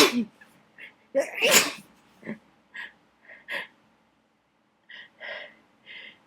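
A person sneezing during a sneezing fit set off by dust: the end of one sneeze right at the start, a second loud sneeze about a second and a half in, then several short, quieter sounds.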